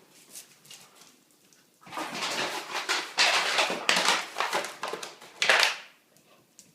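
Vizsla puppy scuffling and rustling about: a run of rough, unpitched scrapes and rustles starting about two seconds in and lasting about four seconds.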